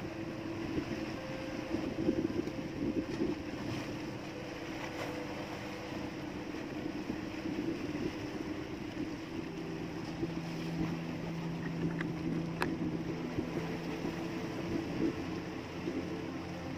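Steady hum of a small outrigger fishing boat's engine running, with a couple of faint clicks about twelve seconds in.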